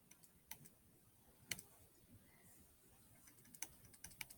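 Faint, scattered clicks of computer keys, a few single ones at first and a quicker run near the end.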